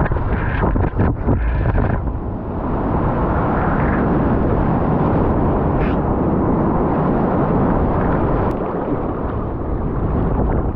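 Ocean surf breaking over and around a surf kayak, heard close from the boat: a few paddle splashes, then from about two seconds in a loud steady rush of whitewater.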